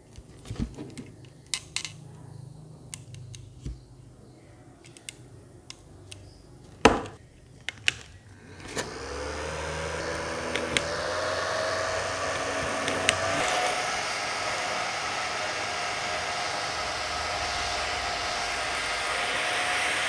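Scattered button clicks and handling knocks on a handheld mini fan, then about nine seconds in its small electric motor spins up with a rising whine and settles into a steady hum with a rush of air. The pitch steps slightly higher just after a click a few seconds later.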